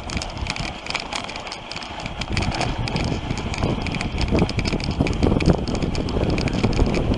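Dog sled runners sliding and rattling over packed snow, a steady scraping hiss dotted with small knocks, growing gradually louder, with some wind on the microphone.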